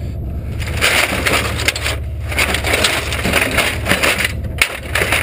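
Crunching and scraping noise in two stretches with a sharp knock near the end, over a steady low engine rumble.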